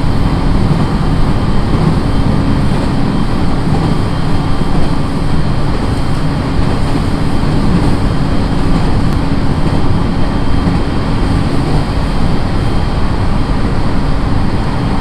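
Steady running noise inside a JR East 701-series electric train under way: an even rumble of wheels on rail with a low steady hum.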